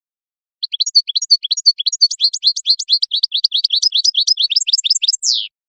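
European goldfinch (colorín) singing: a fast run of short, high twittering notes for about five seconds, ending on one falling slurred note.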